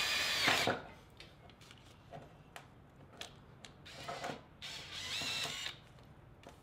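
Cordless drill running in two short bursts, boring a hole through the thin metal transom of a boat: a whine lasting under a second at the start, then another about five seconds in, with small clicks and knocks between.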